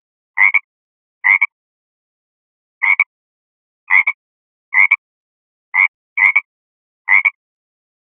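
A frog croaking in short, separate calls, about one a second, several of them clipped into two quick pulses.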